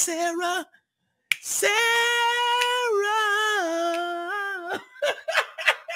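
A man singing unaccompanied. A short phrase is followed by one long, high held note that steps down in pitch partway through, then a few short choppy sounds and sharp clicks near the end.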